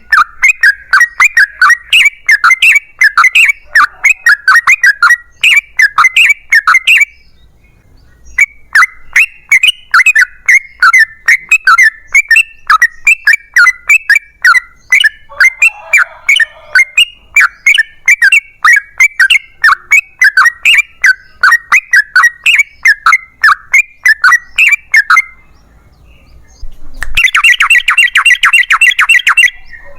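Yellow-vented bulbul (trucukan) calling in long rapid series of sharp chattering notes, about three a second. There are brief pauses about a third of the way in and near the end, followed by a faster, denser trill.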